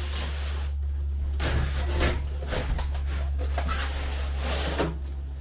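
Large cardboard box holding a folding solar panel being tipped and slid about: cardboard scraping and rustling with a few knocks, over a steady low hum.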